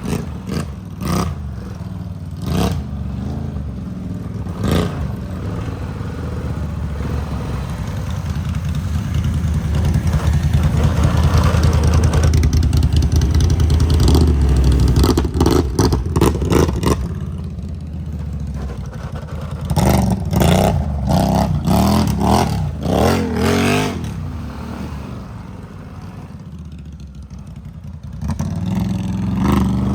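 ATV engine running under load on a dirt trail, revving up and down, loudest and working hardest in the middle stretch. Sharp knocks and rattles of the machine over rough ground come through now and then.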